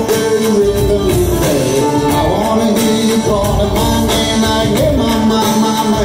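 Bluegrass–hip-hop band playing live on acoustic guitar, banjo and fiddle, with a voice singing a melody over the strumming.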